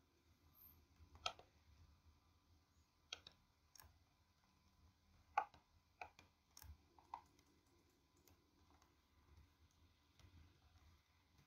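Faint, scattered clicks of computer keyboard keys and a mouse: about seven separate taps, mostly in the first seven seconds, the loudest about five seconds in.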